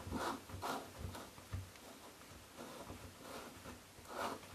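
Chrome bathtub drain being screwed in by hand: a series of short, faint rubbing and scraping sounds as the fingers twist it in its threads, about two a second, pausing about halfway through and then coming again.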